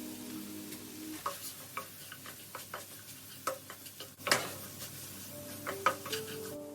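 Food sizzling in a frying pan while a utensil stirs it, with irregular clicks and taps of the utensil against the pan and one sharper knock about four seconds in.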